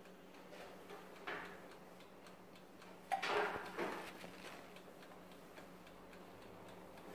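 Countertop electric oven's mechanical timer ticking faintly and evenly over a faint steady hum, with a brief louder handling noise about three seconds in.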